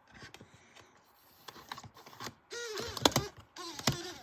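Laptop keyboard and trackpad clicks, scattered taps. Near the end, two short bright sounds with a pitch that bends up and down.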